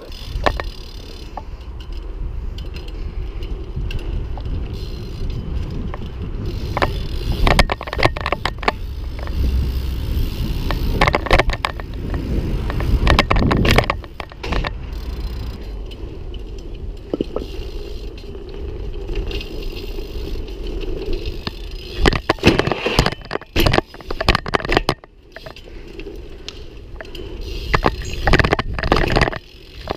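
BMX bike rolling over asphalt and concrete: a steady tyre rumble, broken every few seconds by sharp knocks and scraping clatter as the bike hops, lands and slides.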